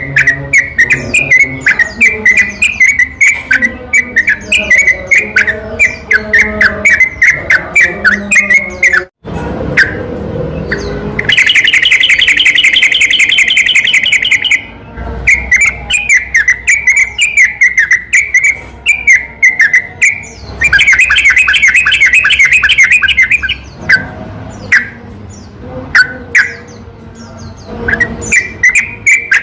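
Yellow-vented bulbul song, a rapid run of short bright chirping notes. About 11 s in and again about 21 s in, the bird breaks into a fast, dense trill that lasts a few seconds, the long rolling 'ropel' sequence used to provoke other bulbuls into singing. There is a momentary cut in the sound about 9 s in.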